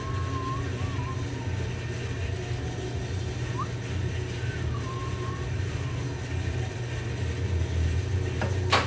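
Wood lathe running steadily with a bowl blank turning on it, a steady low hum under a noisy wash. A single sharp click near the end.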